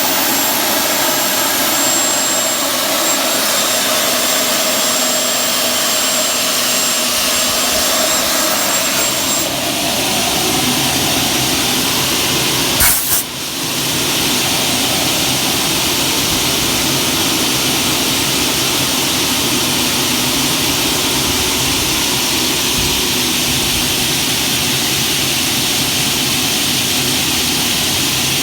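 Aluminium cutting saw with a 500 mm blade running steadily, with a brief sharp noise about halfway through.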